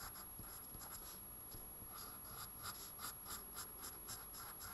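Pen writing on paper, faint and scratchy. From about two seconds in it turns into a regular run of short strokes, about four a second, as a scalloped outline is drawn around a heading.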